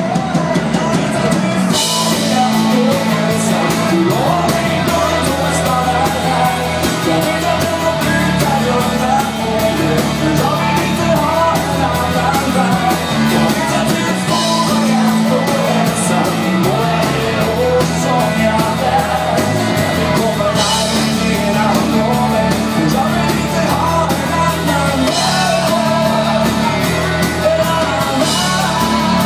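Live rock band playing amplified in the room: electric guitars, keyboard and drum kit under a male lead vocal, with a crash cymbal bursting in several times.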